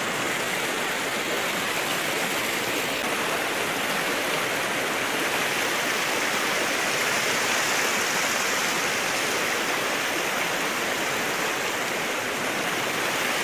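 Steady rush of a swollen, muddy river running fast over rocks.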